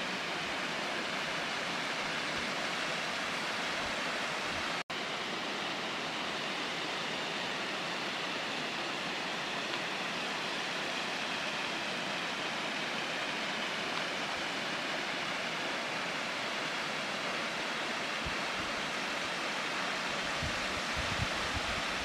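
Steady rushing of the Butakovsky waterfall, a thin mountain waterfall pouring down a rock cliff. The sound cuts out for an instant about five seconds in, and a few low rumbles of wind on the microphone come near the end.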